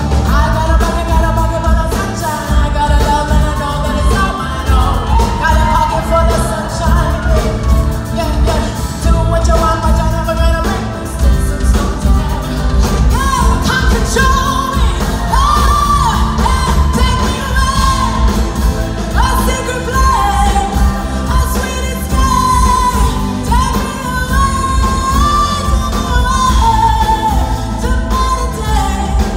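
Female pop singer singing live with a band of drums, guitars and keyboard over a steady beat, heard from within the concert audience.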